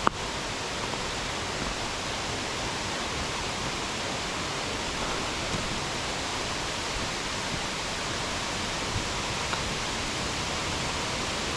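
Steady rush of falling water from a stream's waterfalls.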